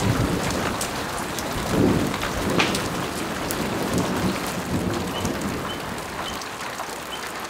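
Heavy rain falling in a thunderstorm, drops pattering on surfaces, with low thunder rumbling in the first few seconds; the whole storm grows softer toward the end.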